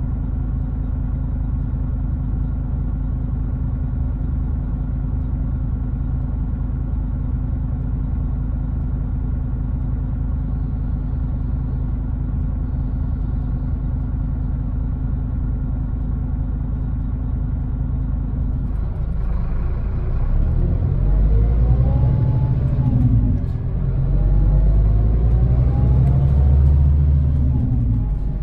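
Scania Interlink MD bus's diesel engine idling steadily, heard from inside the bus. About twenty seconds in it gets louder as the bus pulls away, with rising whines as it accelerates.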